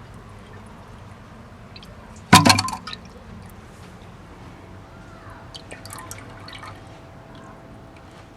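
Water trickling and dripping faintly in a 1974 American Standard toilet, with a loud, sharp clatter of hard objects knocking together a little over two seconds in.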